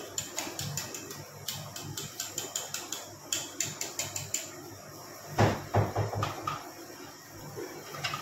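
Wire balloon whisk beating whipped cream in a stainless steel bowl, the wires clicking against the metal in quick strokes, about six a second, in bursts. A few heavier knocks follow about five and a half seconds in.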